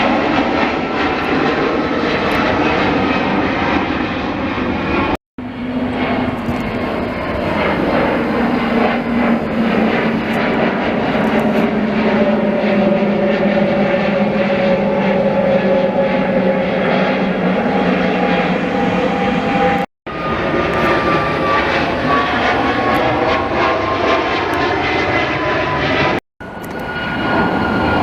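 Airliner's engines running loudly as the plane passes close by, with whining tones that slide slowly in pitch. The sound drops out abruptly for an instant three times.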